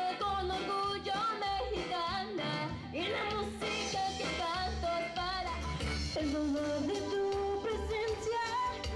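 A woman singing a Tejano song through a microphone over a backing track with a steady bass beat.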